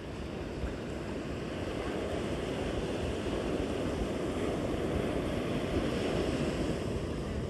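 Ocean surf washing onto a sandy beach: the rush of a breaking wave builds over several seconds and eases slightly near the end, over a low rumble of wind on the microphone.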